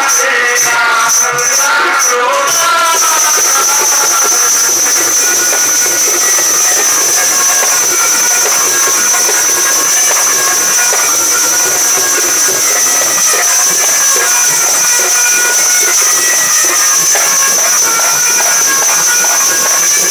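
A sung line with a rhythmic shaker ends about three seconds in. It gives way to a steady loud hiss with a constant high-pitched whine.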